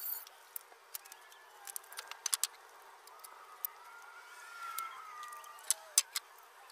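Sharp wooden knocks and clacks as cut lumber blocking is handled and a cordless circular saw is set down on the ground, with a faint wavering tone in the middle.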